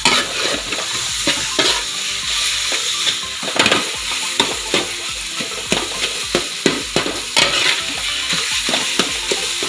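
Flat steel spatula scraping and knocking irregularly against a metal uruli while stirring mashed banana frying in oil, over a steady sizzle.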